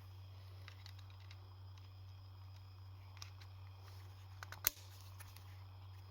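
Scattered light clicks and taps of metal parts and tools being handled during engine assembly, with one sharper click a little past halfway, over a steady low hum.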